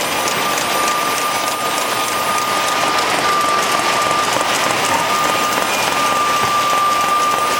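Automated packaging line running: a dense, steady clatter of plastic containers and caps moving along conveyors and through the machines, with a steady high whine over it.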